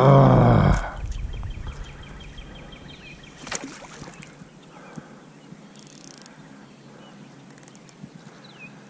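A short loud pitched sound in the first second, then quiet river ambience: faint water stirred around a wading angler, one sharp tick a few seconds in, and a short bird call near the end.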